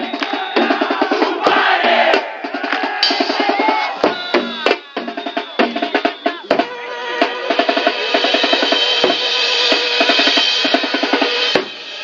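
Drum troupe of bass drums, snare drums and congas playing a fast, driving rhythm together, with a brief break near the end.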